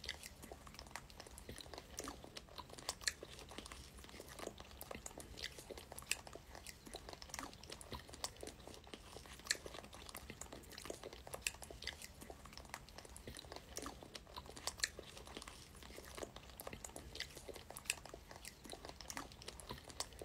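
Close-up chewing and biting of fresh strawberries: irregular wet mouth clicks and soft crunches throughout.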